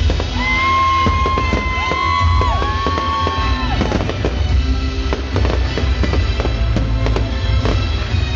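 Fireworks banging and crackling over loud music with a heavy bass.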